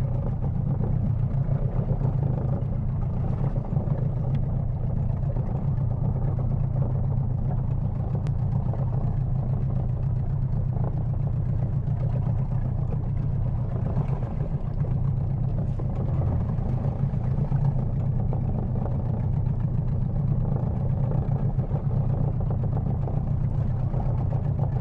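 Outboard motor of a small boat running steadily at low speed, a continuous low engine hum with no change in pace.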